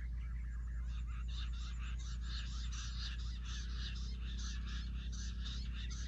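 Jungle bush quail calling: a rapid run of repeated high chirping notes, about three or four a second, building from about a second in, over a steady low rumble.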